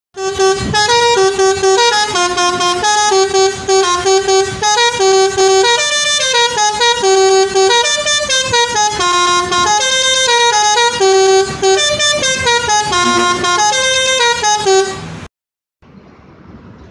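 A coach's basuri musical air horn playing a tune: a run of clear held notes stepping up and down, loud, for about fifteen seconds, then cut off suddenly. After that, only faint road noise.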